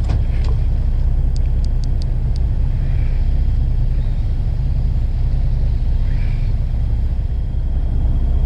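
Fishing boat's engine running steadily, a continuous low drone. A few faint clicks come in quick succession about one and a half to two and a half seconds in.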